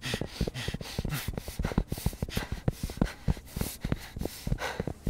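Running footsteps, fast and uneven at several steps a second, with a man's quick panting breaths over them.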